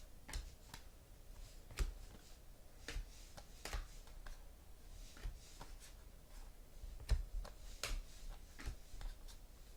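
Football trading cards being handled and flipped through: irregular sharp taps and clicks with short sliding swishes as cards are moved and set down.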